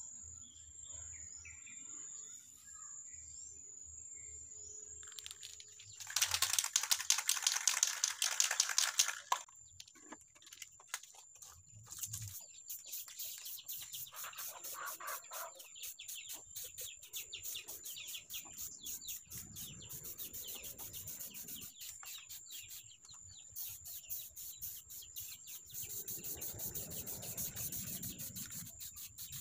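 Outdoor ambience of birds chirping, with chicken clucking, over a steady high-pitched whine. About six seconds in comes a loud, rapid rattling chatter that lasts about three seconds, followed by a run of fast ticking calls.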